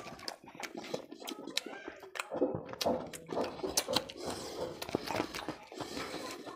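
Close-miked wet chewing and lip-smacking clicks of a man eating rahu fish curry and rice by hand, with his fingers working rice and gravy on the plate.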